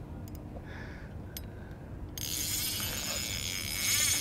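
Fishing reel being cranked to bring in a hooked fish on a bent rod. After a quieter start with a few clicks, a whirring sets in about two seconds in and grows louder toward the end.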